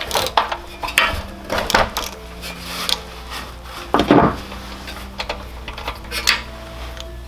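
Ratchet wrench and spark plug socket working the spark plug out of a Predator small engine: scattered metallic clicks, clinks and rubbing, with one louder clunk about four seconds in.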